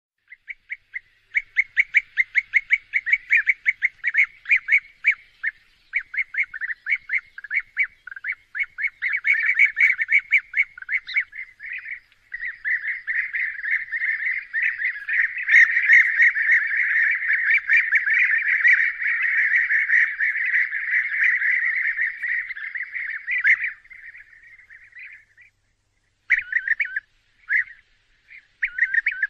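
European bee-eaters calling: short rolling call notes repeated rapidly, running together into a dense stretch of overlapping calls from about twelve seconds in, then breaking into scattered short calls near the end.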